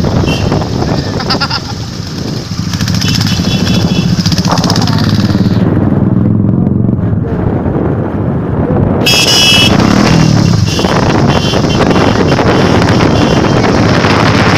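Royal Enfield single-cylinder motorcycle engines running on the move, their pitch rising as they pick up speed after about two seconds. A short high-pitched honk sounds about nine seconds in.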